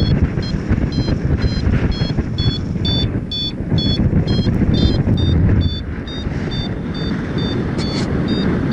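Paraglider variometer beeping in short high tones about twice a second, the sign that the glider is climbing, over loud wind noise buffeting the microphone.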